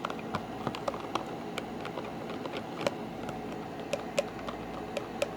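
Soap-and-lotion slime mixture being stirred, giving irregular light clicks and taps, a few each second, over a steady hiss.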